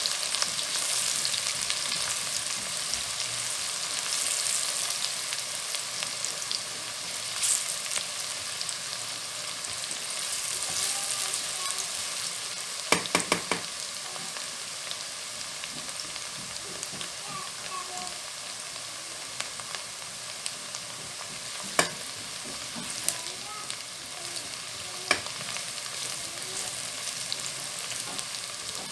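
Chopped onions sizzling steadily in hot oil in a nonstick wok as they are stirred with a silicone spoon, at the start of browning. A few sharp knocks come through about halfway and twice more later.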